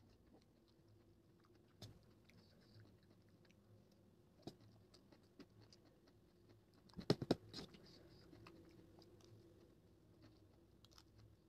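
A person quietly chewing forkfuls of chow mein noodles, with faint scattered clicks throughout. About seven seconds in comes a quick run of louder clinks, typical of a metal fork against a steel plate.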